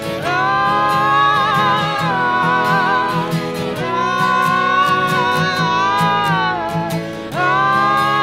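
Live folk band music: a woman sings long, held wordless notes with a wavering vibrato, in three phrases, over strummed acoustic guitar and accordion.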